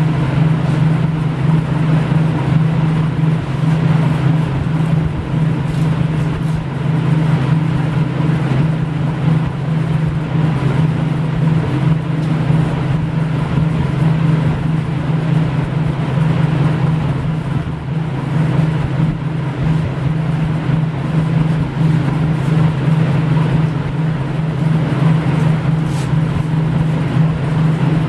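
A steady, unbroken low hum of a running machine, holding the same level throughout.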